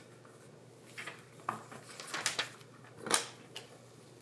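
Scattered light clicks and taps of plastic Play-Doh toy pieces being handled, with the loudest tap about three seconds in.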